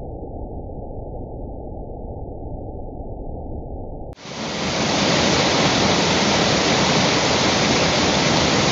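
Waterfall rushing water. For the first four seconds it is slowed down by slow-motion playback to a deep, muffled rumble. About four seconds in it cuts abruptly to normal speed, a louder and brighter steady rush.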